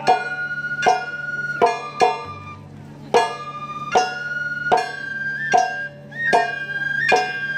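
Live Japanese traditional-style band music: shamisen-like plucked strikes about every 0.8 seconds under a long-held high flute note that steps up in pitch about halfway through.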